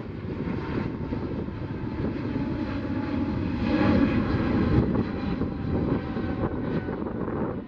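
Jet engines of a Boeing 777-200F freighter, twin GE90 turbofans at climb power, as the aircraft climbs past. A dense, steady rumble with a faint whine that swells to its loudest about halfway through, then eases.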